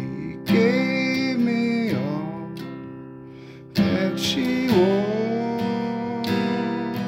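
A man singing slow and sustained along with his own strummed acoustic guitar. Firm strums land about half a second in and again near four seconds, with the chords fading away between them.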